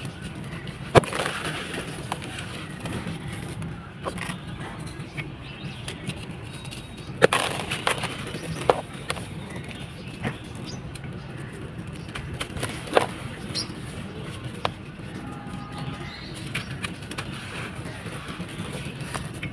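Dry sand-cement balls being crushed and crumbled in a tub: gritty crunching broken by sharp cracks as pieces break, once about a second in, several in quick succession around seven to nine seconds, and once more near thirteen seconds.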